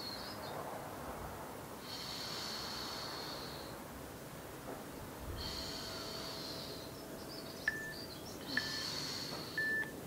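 A woman breathing hard with effort: long hissing breaths about every three to four seconds. Three short high chirps near the end.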